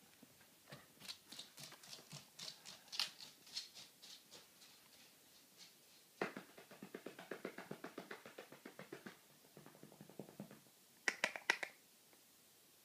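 A dog moving about on a hard wooden floor: runs of light clicking taps, then a denser, rapid, even patter for about four seconds, and a few sharp clicks near the end.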